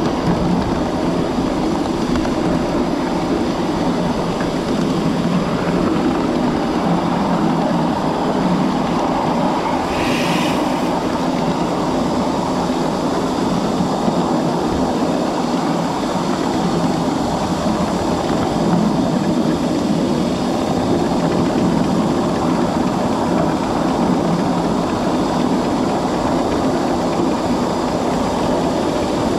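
A 7.5-inch gauge miniature live steam train running along the track: a steady rumble of wheels on rail, with a brief hiss about ten seconds in.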